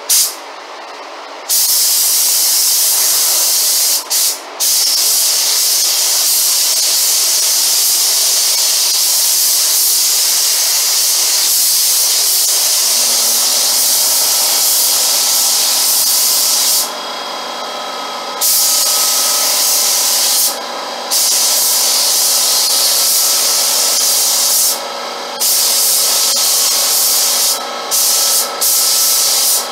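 Paint spray gun hissing as primer is sprayed onto cabinet doors, in long steady passes, with the trigger let off briefly about six times.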